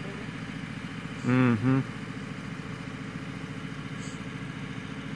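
An engine idling steadily, cut across about a second in by a short, loud two-part shout.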